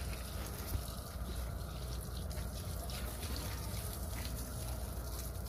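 Water running from a garden hose onto a pile of rocks, a steady trickling hiss over a constant low rumble.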